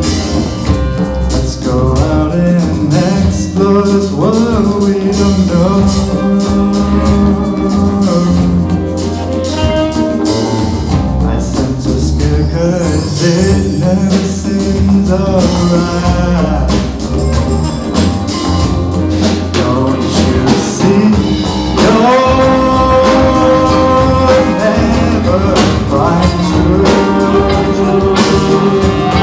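A large band playing a song live: drum kit, bass and guitars over a steady beat, with sung melody on top.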